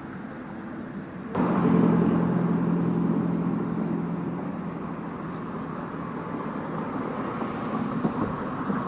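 A motor vehicle's engine running close by: it comes in suddenly about a second and a half in with a steady low hum, then slowly fades.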